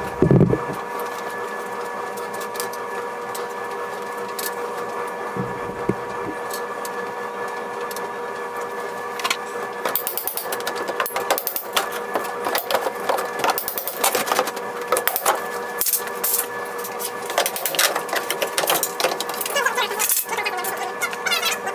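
A steady hum of several tones, like a running appliance. From about ten seconds in, a busy run of sharp knocks and clicks from hand tools working on wooden door trim.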